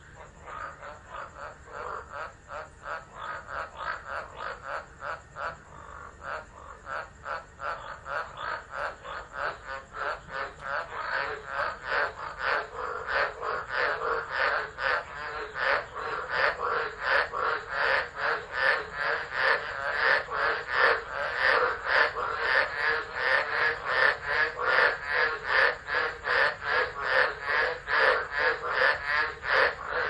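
Chorus of tropical frogs calling, a fast, even rhythm of croaks about two to three a second, growing louder about a third of the way in.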